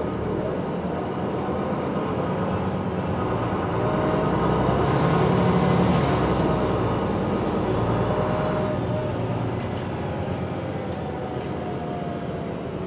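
Cabin noise inside a MAN Lion's City G articulated city bus on the move: a steady rumble of engine and road noise that swells louder through the middle, with a faint whine rising and falling in pitch and a few light rattling clicks.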